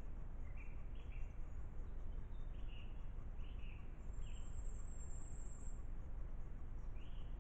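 Forest birds giving short chirps every second or so over a steady low background noise, with a thin, very high note held for about two seconds near the middle.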